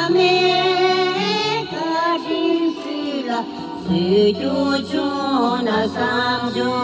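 A woman singing into a microphone, her voice sliding between long held notes over accompanying music with held bass notes.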